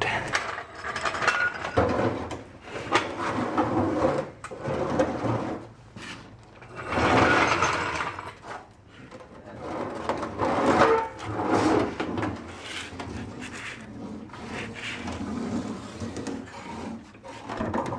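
Rusted steel fuel tank from a 1997 Honda Civic being dragged out from under the car across a concrete floor: a series of irregular scraping and rubbing noises, each one to two seconds long, with short pauses between them.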